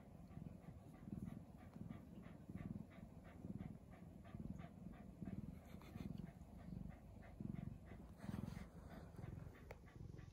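Drowsy tabby-and-white cat breathing close to the microphone: faint low pulses in a steady rhythm, about one and a half a second. A brief rustle comes about eight seconds in.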